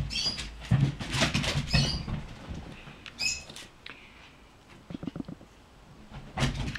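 Irregular rustling, shuffling and small clicks from a person moving about close to the microphone, with a short high squeak about three seconds in.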